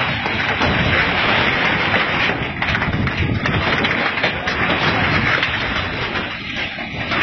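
Loud, continuous rumbling roar during strong earthquake ground shaking, dense with crackling and thuds.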